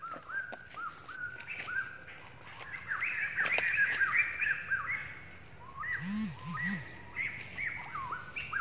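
Birds calling: many short, repeated chirps overlapping at several pitches, with a few sharp clicks and three short low calls about six seconds in.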